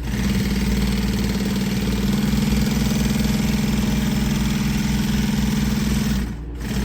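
Industrial walking foot upholstery sewing machine running steadily at speed as it stitches a seam. It stops suddenly about six seconds in.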